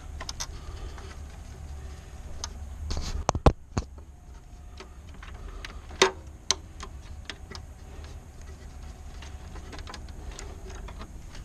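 Scattered clicks and knocks of hand work with a screwdriver on a pool timer box, over a low steady hum. The loudest knocks come about three and a half and six seconds in.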